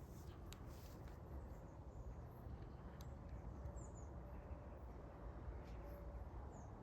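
Quiet woodland ambience: a low steady rumble, a few faint short high bird chirps, and a couple of soft clicks.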